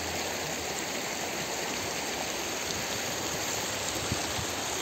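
River water rushing: a steady, unbroken wash of flowing water.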